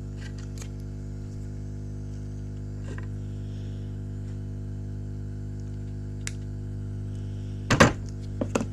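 A steady electrical hum with several light clicks and taps of small hand tools handling solder wick, and a louder short clatter near the end.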